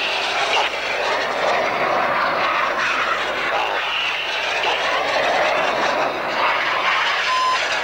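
Jet noise from a BAE Hawk making a low pass: a loud, steady rush with a faint whistling whine in it. A short beep sounds near the end.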